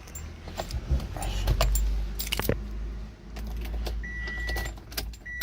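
Car keys jangling and clicking as they are handled, over a low rumble, with two short electronic warning beeps from the car near the end.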